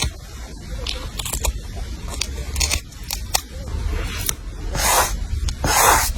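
Scissors cutting paper: scattered light snips and clicks, with two longer cuts near the end.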